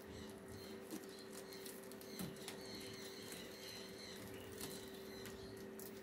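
Faint crinkling of a plastic bag and small clicks against the dishwasher's wire rack as it is handled, over a steady low hum.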